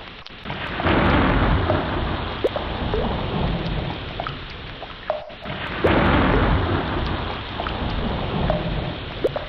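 Heavy rain falling steadily with rolling thunder, which swells loudly about a second in and again near six seconds. Short plinking drops sound throughout.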